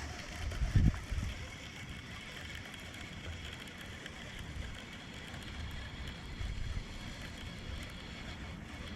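Steady, even outdoor background hiss, with a brief low bump on the microphone about a second in.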